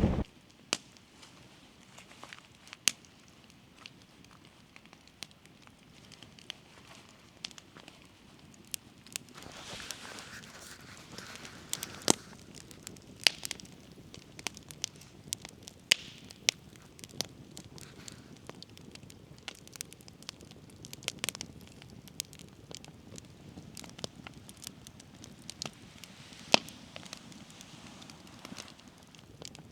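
Quiet outdoor background with sparse, irregular faint clicks and crackles.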